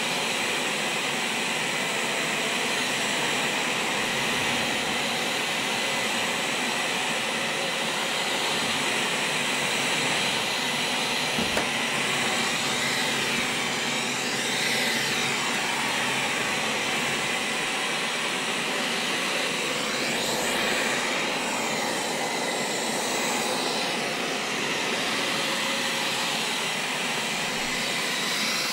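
A loud, steady rushing machine noise that holds even throughout, with a faint sweeping shift in its tone through the middle.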